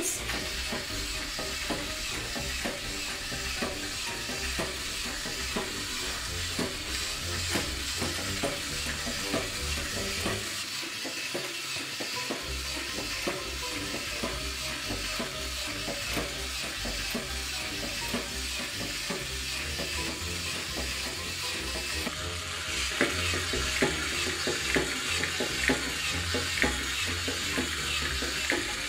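Little Live Pets turtle toy walking on a wooden tabletop: its small battery motor and gears give a steady crackly whir, with plastic clicks that grow more distinct for the last several seconds.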